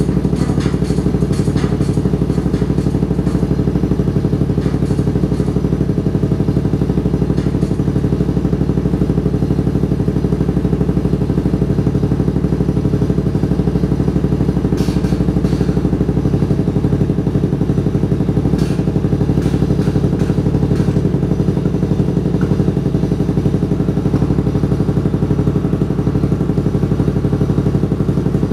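Customised Yamaha Majesty 4D9 big scooter's engine idling steadily, with a few faint clicks.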